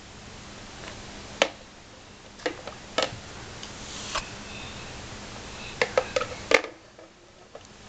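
Small plastic shape-sorter blocks clicking and knocking against a plastic bucket as a baby handles them: a few separate knocks, then a quick cluster of them near the end.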